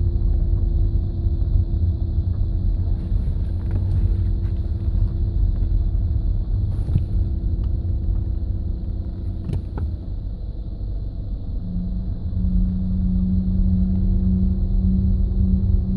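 Low-pitched groaning from the front of a 2009 Audi A3 2.0 TDI over a deep, steady rumble. A steady droning tone weakens about ten seconds in and comes back stronger a couple of seconds later. The groan is an unresolved drivetrain fault heard at low speed near full steering lock that stops when the clutch is pressed, and a new steering rack, wheel bearing, discs and pads have not cured it.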